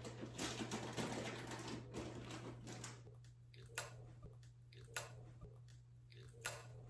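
Quiet kitchen handling noises over a low steady hum, with three sharp clicks or taps spaced a second or so apart in the second half.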